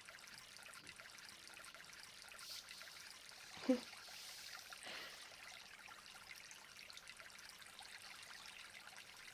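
Faint, steady trickling and rushing of a waterfall, with one short, soft vocal sound from a woman about four seconds in.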